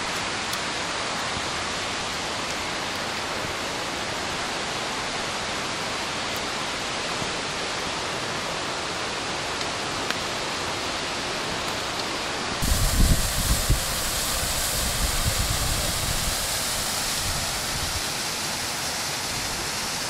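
Steady rush of falling water from a waterfall on a mountain stream. About two-thirds of the way through, a low gusty rumble joins it for several seconds.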